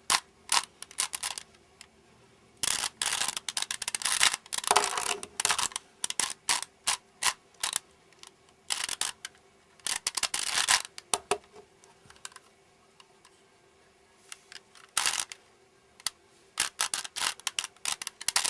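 Plastic 3x3 Rubik's Cube being twisted by hand: bursts of quick clicking and clacking as the layers turn, broken by pauses, with a quiet stretch of a few seconds after about the middle.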